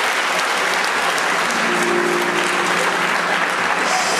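Audience applauding steadily, with music underneath; a few held low notes sound through the clapping a little past the middle.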